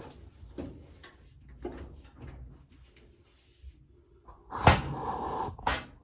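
Scattered light knocks and clatter of things being handled, then a loud knock about three-quarters of the way through and a second one about a second later.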